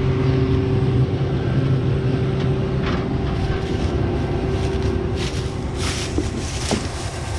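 Combine harvester running while cutting soybeans, a steady mechanical hum; its lowest tone weakens about three seconds in.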